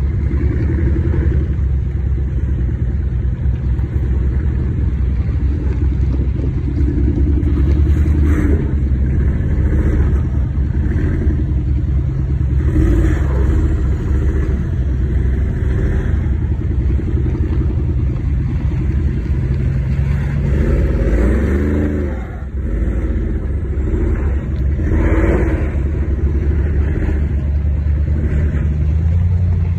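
Twin-turbo V8 of a 2017 Mercedes G63 AMG, with a Stage 2 Weistec tune and catless downpipes, pulling the truck up a dirt hill climb under load. The revs rise and fall as the driver works the throttle, easing off briefly about two-thirds of the way through.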